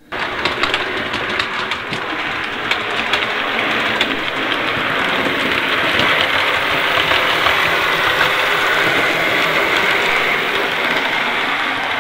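OO gauge model steam locomotive and coaches running on the layout's track: a steady whirr of the small motor and the rumble of wheels on rail, with faint clicks from the rail joints. It gets a little louder as the train comes past.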